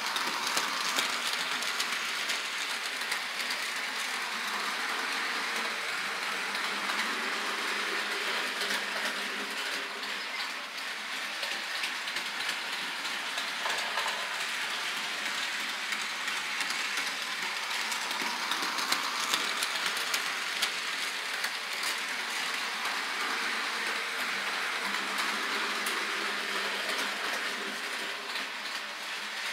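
Model train running on the layout's track: a steady whir with fine, rapid clicking of the wheels on the rails.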